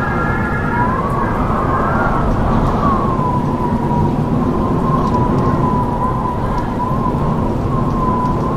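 Howling wind: a steady rushing roar with a high, wavering whistle that hovers around one pitch, and a few higher whistling tones over it at the start.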